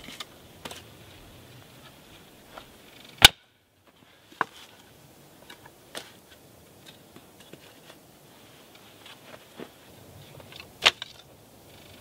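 Lengths of cut firewood knocking and clattering together as they are stacked by hand, with two sharp, loud wooden cracks, about three seconds in and near the end.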